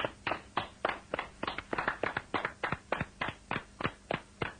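A few people clapping their hands in an even rhythm, about four claps a second.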